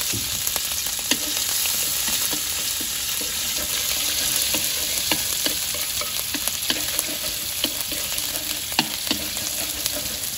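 Turmeric frying in hot oil in a pan: a steady sizzle, with irregular clicks and scrapes of a spatula stirring it.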